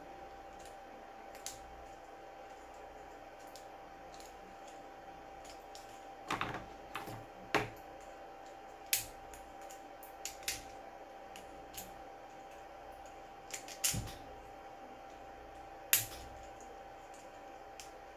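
Scattered sharp clicks and snaps from a small hand tool picking and scraping leftover plastic off a 3D-printed ball-bearing part. The clicks are irregular, mostly in the second half, over a faint steady hum.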